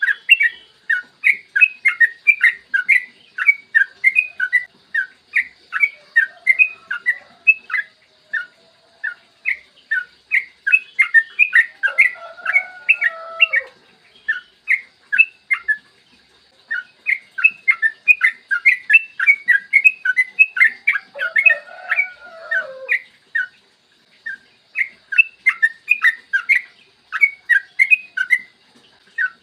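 Yellow-vented bulbul (trucukan) singing a long run of rapid repeated chattering notes, several a second. Twice, about halfway and again two-thirds of the way through, it drops into a lower warbling phrase.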